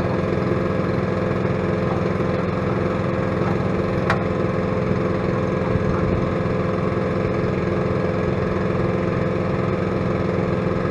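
Engine idling steadily at an even pitch, with one sharp click about four seconds in.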